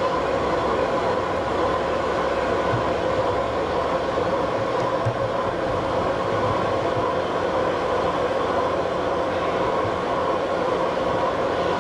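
Large vertical boring mill running in a steel-works machine shop: a steady mechanical drone with a constant hum, with no distinct strikes or breaks.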